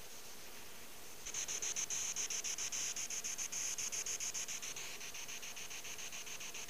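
Small electronic device giving a fast, regular pulsing hiss, about eight pulses a second, that starts about a second in and turns fainter after about five seconds.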